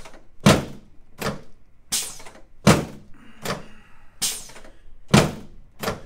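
A chiropractic drop table's section thudding down under repeated hand thrusts, about eight loud thuds roughly three-quarters of a second apart, some stronger than others.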